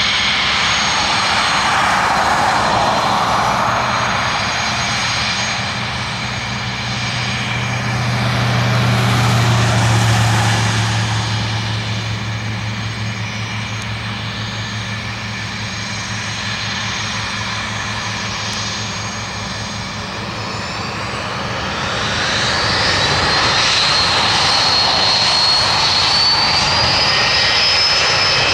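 Dassault Falcon 50's three turbofan engines running with a steady whine and low hum as the jet rolls slowly along the runway. About three-quarters of the way through, the engines spool up: the whine rises in pitch and grows louder as power comes up for the takeoff run.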